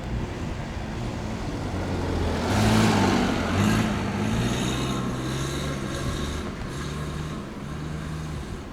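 EH500 'Kintaro' electric locomotive hauling a tank-car freight train past, a steady rumble with low humming tones from the locomotive's motors, loudest about three seconds in.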